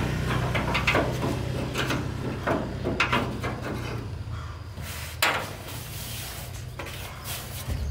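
Scattered knocks and clatter of repair work over a steady low hum, with one sharper knock about five seconds in.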